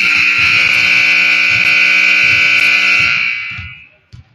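Gym scoreboard buzzer sounding one long, loud blast of about three seconds, then dying away.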